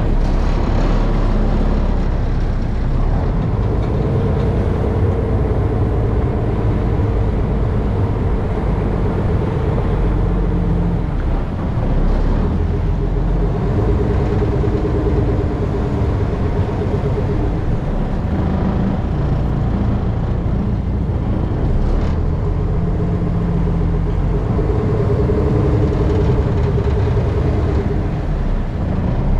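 Steady low engine rumble with a droning hum that fades in and out several times.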